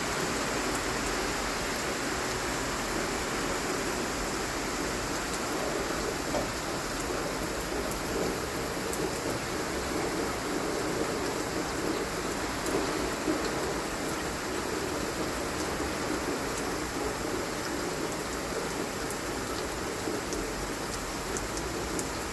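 Steady rain falling, a continuous even hiss with scattered small drop ticks.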